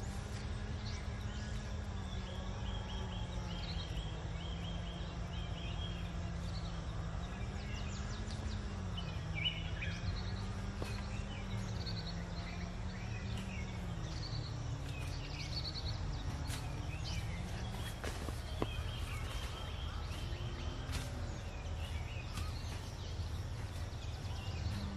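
Outdoor rural background: birds chirping in short repeated calls over a steady low hum that wavers a little in pitch.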